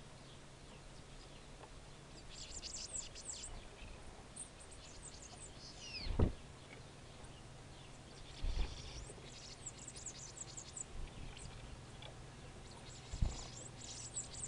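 Small wild birds chirping in clusters of short high-pitched notes, with one falling whistle about six seconds in. A few dull low thumps stand out as the loudest sounds.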